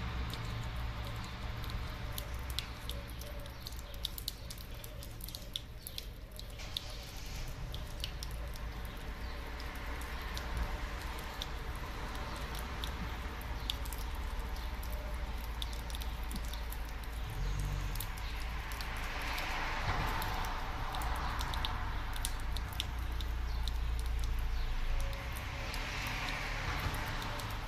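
A cat lapping water from a thin stream at a tap: a long run of small wet clicks from its tongue, over a steady low rumble.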